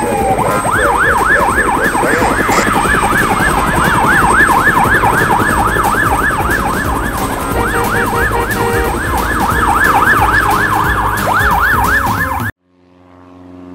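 Cartoon ambulance siren sound effect, a fast yelp rising and falling about three times a second. It cuts off suddenly near the end, and a low engine drone then fades in.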